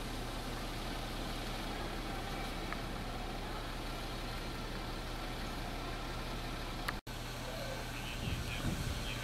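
Steady low hum of plow truck engines idling, with the sound cutting out for an instant about seven seconds in.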